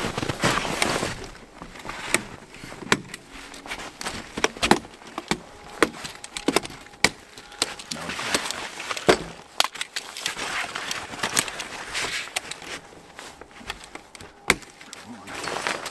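Tarp and camping gear rustling and crinkling as they are packed up in a hurry, with many sharp clicks and knocks scattered through it.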